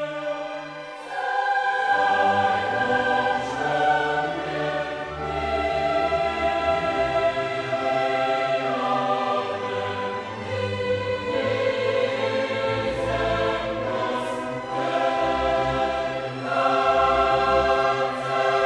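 Choral music with orchestra: voices singing long held chords over low bass notes, the chord changing every second or two.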